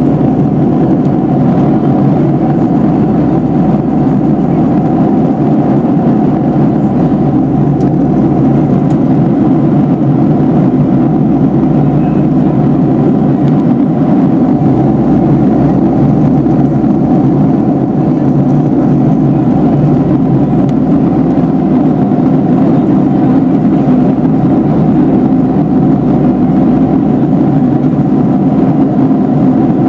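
Cabin noise of a Boeing 757-351 airliner in cruise, heard from a window seat over the wing: a steady, loud drone of the engines and air rushing past the fuselage, strongest in the low-mid range and unchanging throughout.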